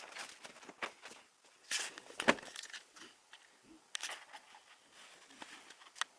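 Irregular handling noises of bags being packed: quick rustles, scrapes and clicks, with the loudest a sharp knock about two seconds in.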